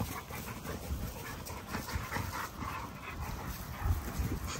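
XL American bully dogs play-fighting: panting, scuffling and low growling, with a louder growl near the end.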